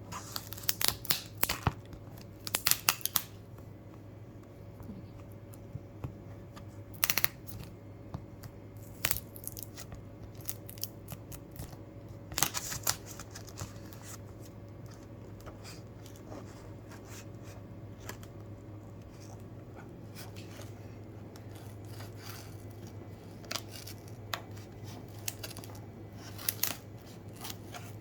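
Packaging of a boxed speaker being cut, torn and handled during unboxing: irregular sharp crackles and clicks, busiest in the first few seconds, again around seven seconds and just past twelve seconds, then sparser, over a steady low hum.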